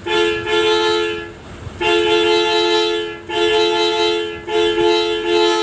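Replica (KW) Hino RK bus horn sounding a two-note chord in a run of blasts about a second long, with short gaps between them, five or so in all.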